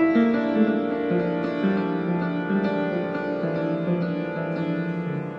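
Upright piano improvisation: slow, held notes and chords ringing into one another, getting gradually softer. Recorded through a cell phone's microphone.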